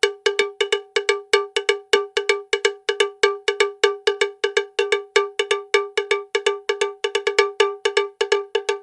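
A cowbell clanking over and over, about four to five uneven strikes a second, the rhythm of a bell swinging on the neck of a walking cow.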